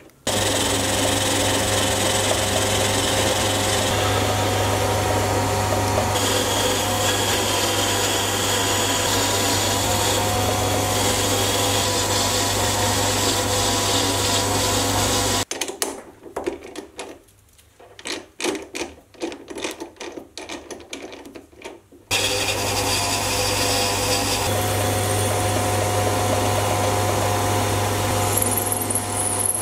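Sieg C3 mini metal lathe running, with a steady motor hum and whine while it turns and then drills a metal bar. About halfway through the running stops for several seconds, leaving quieter scattered clicks and handling noises, then the lathe runs again.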